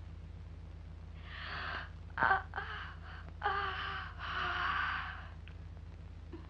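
A boy yawning, a long drawn-out breathy yawn with a moaning voiced tone, coming in several stretches from about a second in until about five seconds in. A steady low hum runs underneath.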